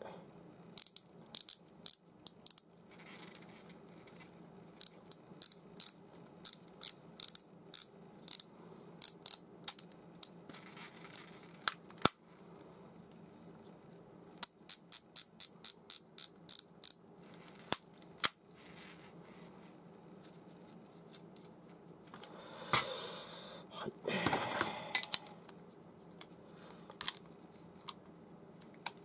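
Sharp small clicks in short runs, about three to four a second, from tools and screws being worked on a fishing reel during reassembly. Near the end there is a brief, louder rustling scrape.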